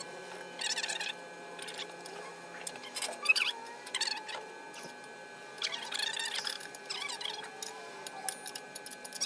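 Irregular metal clinks and rattles of titanium exhaust pipe sections being handled and fitted into place under a car, in several short bursts, over a faint steady hum.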